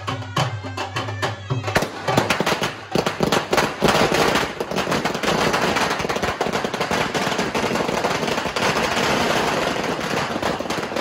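A long string of firecrackers going off in a continuous rapid crackle of bangs, starting about two seconds in and running for about nine seconds.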